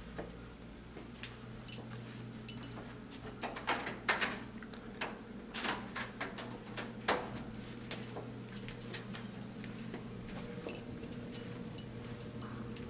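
Scattered light clicks and knocks from people moving about and handling things, over a steady low hum.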